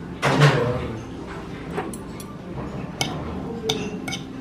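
Tableware clinking: half a dozen sharp, separate clinks of dishes and cutlery, the first about a quarter of a second in and the loudest.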